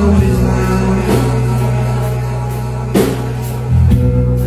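Live rock band playing loud: electric guitar and drum kit over deep held bass notes that change pitch a few times, with a few sharper drum hits.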